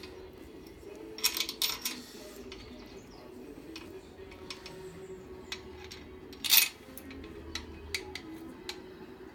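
Light metallic clinks and taps of steel bolts and hand tools being handled while bearing-cap bolts are fitted into an engine block, with a quick run of clinks early on and one sharp clink at about six and a half seconds, over a faint steady hum.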